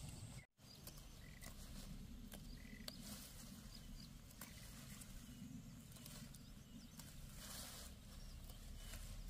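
Faint rustling of leaves and small snaps of water spinach stems being picked by hand, over a low steady rumble, with a couple of short high chirps early on and a brief dropout half a second in.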